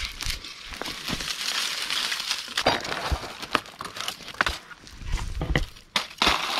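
Dry fallen leaves crunching and crackling as they are handled, with sharp twig clicks and snaps scattered through, as a bundle of dry leaves and sticks is laid onto a campfire; the snaps cluster in the second half.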